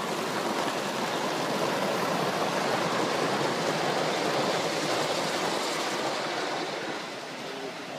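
Gauge one model train running past close by, its wheels rolling on the track as a steady rushing noise that swells as the coaches pass and fades near the end.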